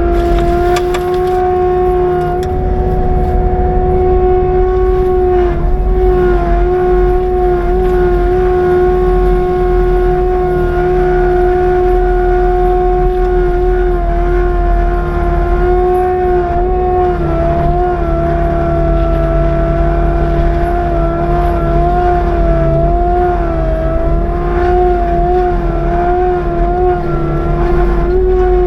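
Skid steer with a forestry mulcher running hard, heard from inside the cab: a loud, steady whine over the engine's low rumble. The pitch dips and wavers now and then as the mulcher head takes load cutting through brush.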